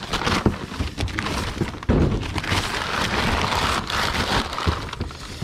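Old newspaper packing being crumpled and pulled out of a cardboard box by hand: a dense crackling rustle with a few knocks.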